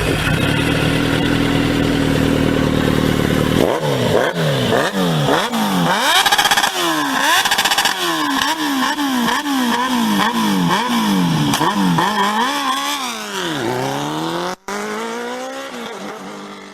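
Yamaha Fazer 250's single-cylinder engine through an aftermarket Jeskap sport exhaust, running steadily. It is then revved in quick repeated blips, about three every two seconds, with one slower rev near the end. The sound cuts out for an instant about fourteen seconds in, then falls away.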